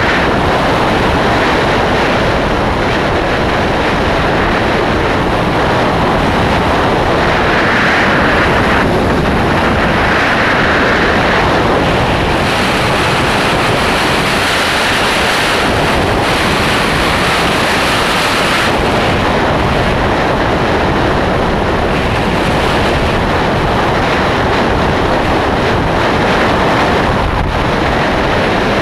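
Steady, loud wind rush over the microphone of a Honda CBR600 motorcycle at highway speed in strong crosswinds, with the bike's engine and road noise underneath. It turns hissier for a few seconds in the middle.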